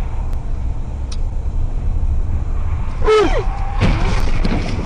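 Steady road and engine rumble inside a moving car. About three seconds in comes a short falling cry, and just after it a crash: a run of sharp knocks and bangs as a car slides across and collides close in front.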